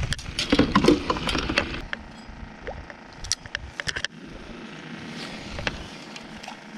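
Handling noise from fishing gear: a quick run of clicks and rattles for about two seconds, then scattered single clicks.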